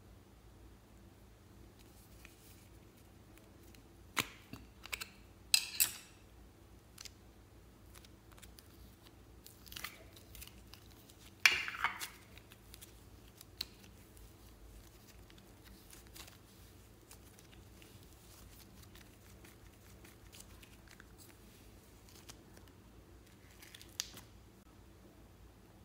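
Hands handling slime and clay in a tray of slime topped with foam beads and sequins: a few short crackles and clicks, the loudest a little before halfway, with quiet room tone between.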